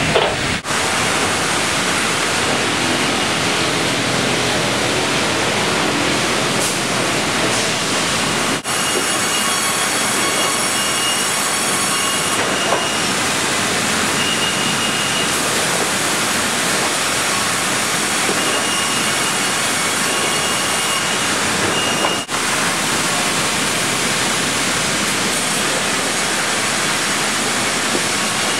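Loud, steady din of a sawmill production line: big saws running and cutting logs as they are carried through on conveyors, with a thin high whine coming and going. The noise is loud enough that earplugs are needed. It breaks off for a moment twice.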